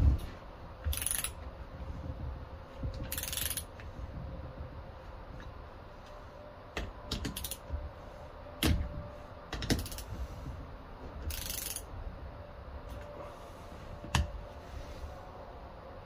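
Socket ratchet wrench clicking in short runs, with scattered sharp clicks, as cylinder head bolts on an outboard power head are tightened.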